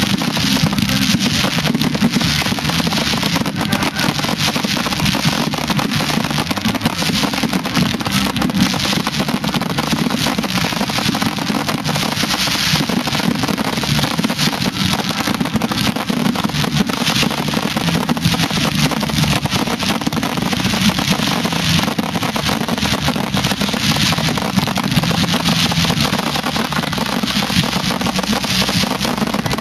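Ground fireworks going off continuously, shooting showers of sparks: a steady, loud rushing hiss thick with rapid crackles.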